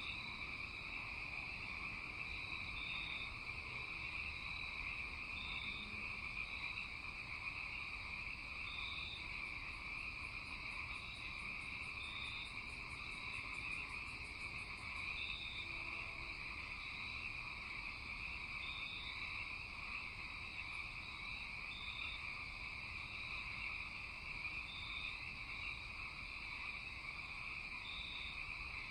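Night chorus of insects and frogs: a steady high-pitched chorus, with short chirping calls repeating about once a second. A fast, faint, very high trill joins for a few seconds about a third of the way in.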